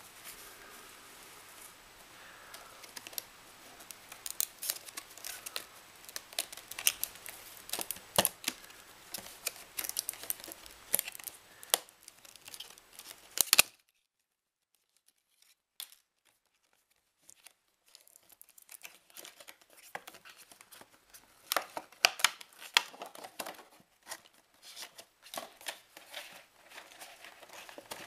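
Crinkling plastic and cardboard packaging being handled and opened, with many sharp, irregular crackles and tearing sounds. They are broken by a few seconds of dead silence about halfway through.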